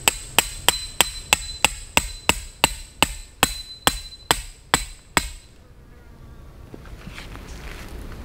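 A tent stake being hammered into the ground: about twenty sharp blows, three or four a second, each with a metallic ring. The blows stop about five seconds in.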